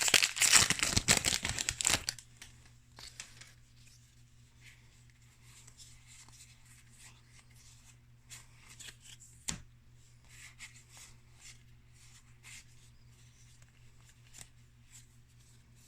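Foil wrapper of a Magic: The Gathering booster pack crinkling and tearing open for about the first two seconds. Then faint clicks and soft slides of cards being handled, with one sharp tap about halfway through, over a faint low hum.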